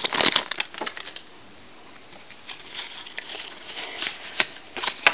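Foil wrapper of a Pokémon card booster pack crinkling as the cards are pulled out, then quieter rustling and light clicks as the cards are handled and fanned out.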